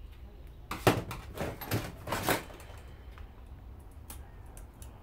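A quick run of irregular knocks and clatters from metal and plastic parts being handled during a teardown, starting about a second in and lasting about a second and a half, the first knock the loudest; a few faint clicks follow.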